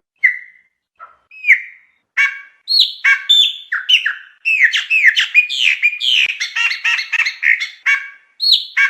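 Chopi blackbird (pássaro-preto) singing: a few separate slurred whistles, then from about two seconds in a fast, unbroken run of loud sliding whistles and chattering notes.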